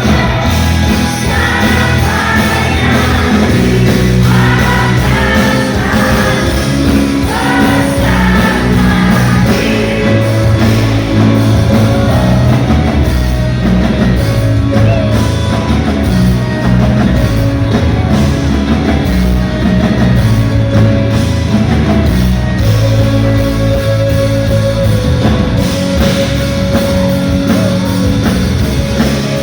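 Live band playing a pop-rock song: a singing voice over drums, bass and guitars.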